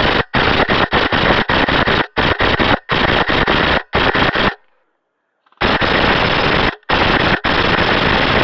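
Umbrella Armory custom M4 airsoft AEG firing on full auto: a string of short bursts, a pause of about a second past the middle, then two long bursts.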